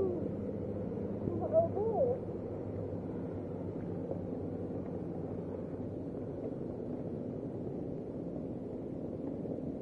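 Steady rushing of wind and rain outdoors, with a short voice call about a second and a half in.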